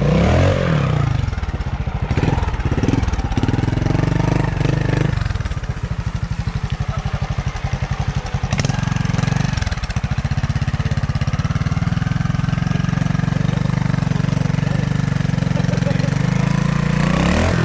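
Trials motorcycle engine running, mostly at a steady idle, with the revs rising and falling briefly near the start and again near the end.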